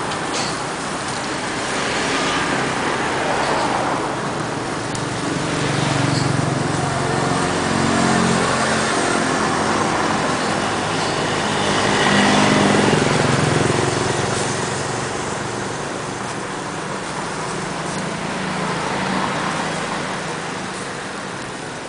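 Street traffic: motor vehicles passing with engines rising and falling, loudest about twelve seconds in, over a steady street noise.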